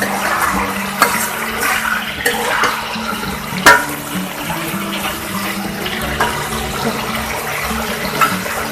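Potatoes, eggplant and sponge gourd frying in oil and spices in a pan, a steady sizzle, with a few sharp knocks against the pan, the loudest about four seconds in.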